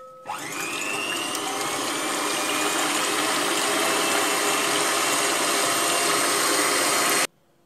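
Electric hand mixer starting up, its motor whine rising as it gets up to speed, then running steadily as it beats eggs until foamy. It cuts off suddenly near the end.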